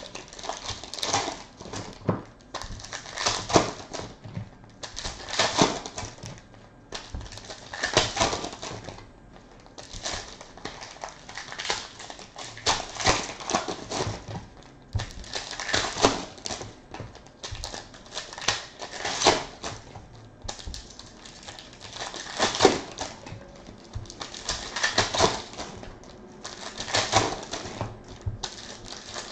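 Clear plastic trading-card pack wrappers crinkling and tearing as packs are ripped open, with cards handled and stacked, in crackling bursts every second or two.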